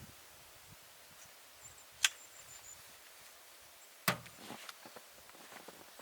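Two sharp knocks about two seconds apart, the second heavier with a dull low thud.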